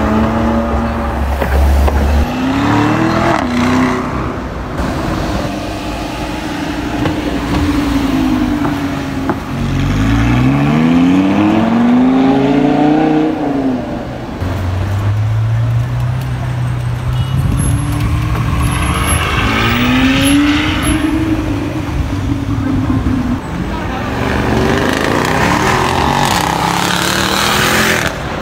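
Sports car engine accelerating hard, its note rising and falling several times as the revs climb and drop.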